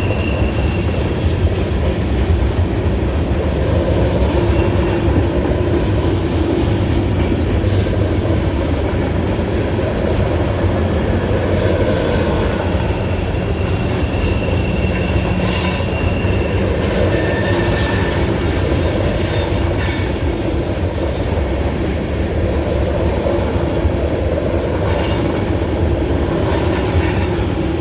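Freight cars of a long mixed freight train rolling past: a steady rumble of steel wheels on rail. A few faint wheel squeals hold for a second or two at a time, and occasional sharp clicks come in the second half.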